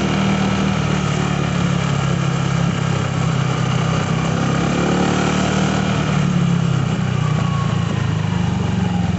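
Honda Vario scooter's single-cylinder engine and CVT running steadily with a rattling, trickling noise like a worn bearing, easing down slightly near the end. The owner has already replaced the whole CVT set without curing it, and later traces the noise to a worn centre-stand rubber stopper or pivot.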